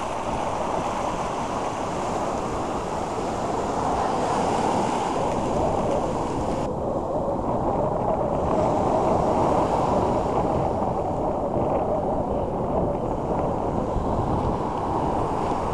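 Steady rush of ocean surf with wind buffeting the microphone; the upper hiss thins out about seven seconds in.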